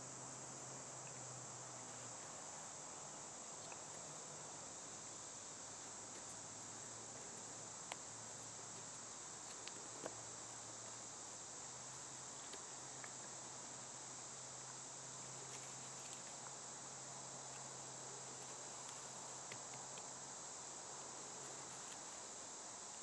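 Faint, steady chorus of insects in the woods, an even high-pitched buzz, over a low steady hum, with a couple of tiny clicks about eight and ten seconds in.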